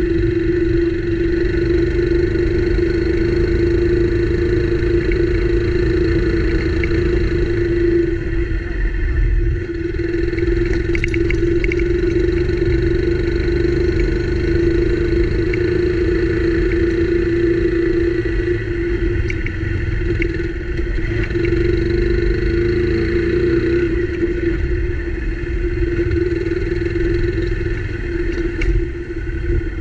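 Motorcycle engine running steadily at a low cruising speed on a rough dirt road, its pitch holding even, with heavy wind rumble on the microphone and a few light knocks from the bumpy track.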